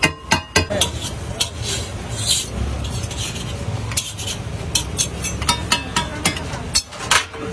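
A metal spatula scraping and tapping on a flat dosa griddle as dosas are folded and lifted off, in irregular sharp strokes over a steady low rumble.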